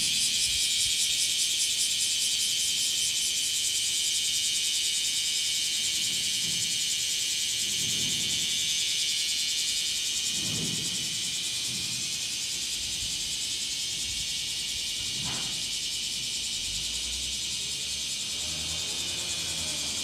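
Chorus of bear cicadas (kumazemi) calling together: a dense, steady, high-pitched buzzing shrill with a fast pulse, a little softer in the second half.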